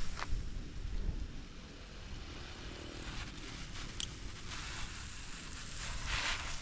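Water spraying from a garden hose nozzle on its shower setting onto pepper and tomato plants and the soil, a steady rain-like hiss that grows louder near the end, with a low rumble underneath.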